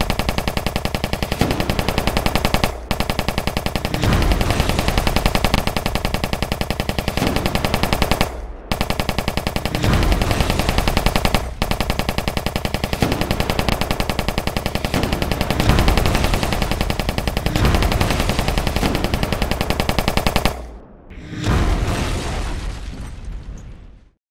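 Machine-gun fire sound effect: long runs of rapid shots with a few short breaks. It fades out near the end and then cuts off to silence.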